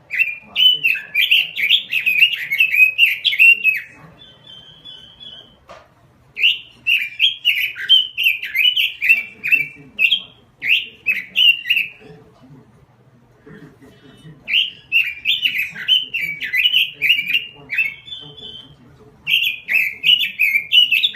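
Red-billed leiothrix (Pekin robin) singing in full song: fast, warbled phrases delivered in four bursts of a few seconds each, separated by short pauses that hold a few brief high notes.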